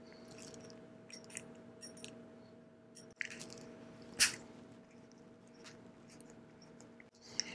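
Bicycle chain tool (chain breaker) being worked to press a rivet pin out of a mountain bike chain: faint creaks and small clicks, with one sharper, louder click about four seconds in.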